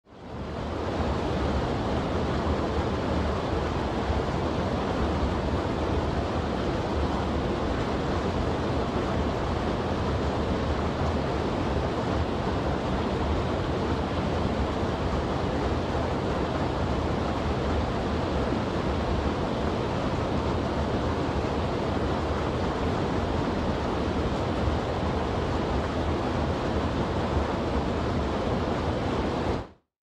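Small mountain stream cascading over boulders: a steady rush of water that fades in over the first second and dies away at the very end.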